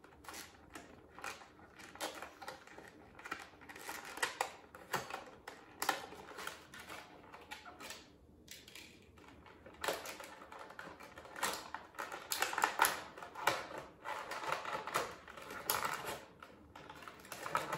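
Clear plastic packaging tray crinkling and crackling in quick irregular clicks as an action figure is worked out of it by hand, with louder bursts of crackling in the last few seconds.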